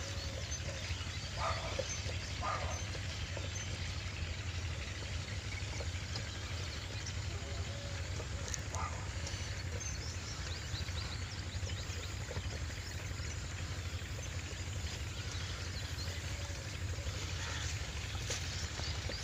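Outdoor field ambience: a steady low hum, with a few short animal calls about one and a half, two and a half and nine seconds in.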